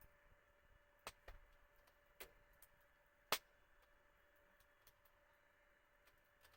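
Campfire wood crackling quietly: a few sharp pops about a second and two seconds in, the loudest just after three seconds, among fainter ticks.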